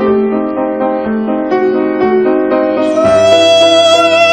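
Piano accompaniment playing a gentle phrase on its own; about three seconds in, a female operatic voice comes in on a long held note over it.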